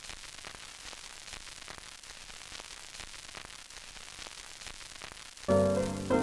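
Steady static hiss with faint crackles, a glitch sound effect. About five and a half seconds in, solo piano music comes in.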